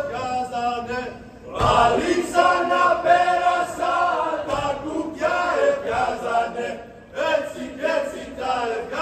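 Group of men singing a Greek folk song together, in sung phrases with short breaks about a second and a half in and again near the end.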